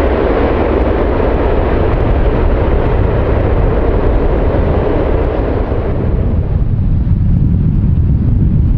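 Jet airliner's engine noise as the plane passes close by. The noise fades about six seconds in, leaving a low rumble.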